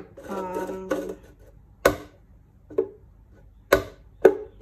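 Knife point stabbing holes through the bottom of a thin disposable plastic container: four sharp plastic clicks at uneven intervals, the second fainter, each with a brief ring.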